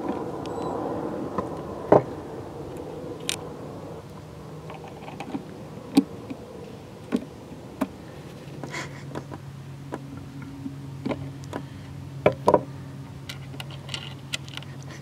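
Sharp metal clicks and taps of tweezers and needle-nose pliers against the output jack as they fish it up through the jack hole of a hollow-body Epiphone Casino, a dozen or so scattered through, the loudest about two seconds in and near the end. A low engine hum fades out over the first few seconds, and a faint steady low hum comes in about halfway.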